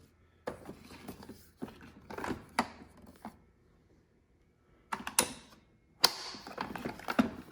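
Irregular hard plastic clicks, knocks and light scrapes from handling a Keurig K-Mini coffee maker, with a quiet pause of about a second and a half midway.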